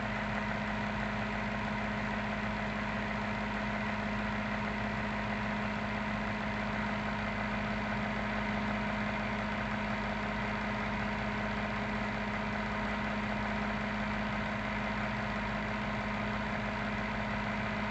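Washing machine water pump motor running steadily under the control board's service-mode test, a constant electric hum.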